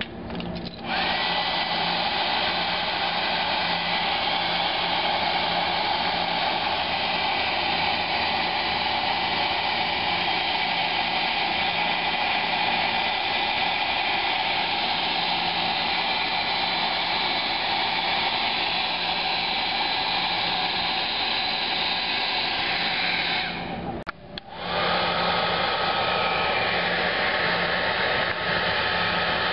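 Hair dryer blowing steadily with a fixed whine over its airflow hiss, warming vinyl decals to soften them for removal. It cuts out briefly near the end and starts again with a lower whine.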